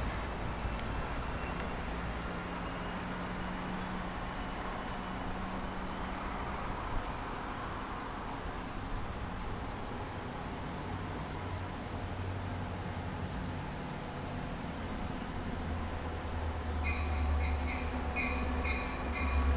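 Cricket chirping steadily, high-pitched, about two and a half chirps a second. A low rumble builds over the last few seconds.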